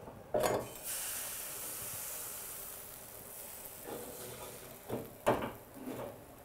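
Pancake batter sizzling in a hot oiled frying pan as it is ladled in: a hiss that starts about a second in and slowly fades. A few brief sharper sounds come near the end, the loudest about five seconds in.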